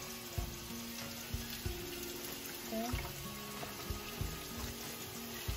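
Soaked dried chiles and their soaking liquid pouring and splashing from a plastic bowl into a blender jar, with a few soft knocks.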